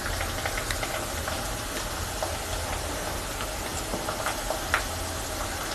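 Onions and ginger paste frying in hot mustard oil in a kadai: a steady sizzle with small scattered crackles over a constant low hum, and one sharper click about a second before the end.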